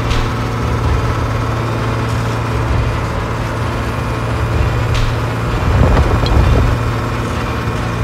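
Steady engine-like hum of a miniature toy tractor pulling a loaded trailer, swelling a little louder about six seconds in.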